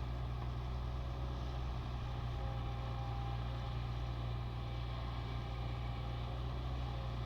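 Diesel engine of heavy mining earthmoving machinery running steadily: a deep, even drone with no change in speed.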